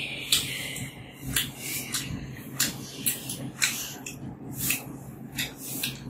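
Close-up eating sounds: wet chewing and lip-smacking of a mouthful of braised pork, a dozen or so short, sharp smacks at an irregular pace.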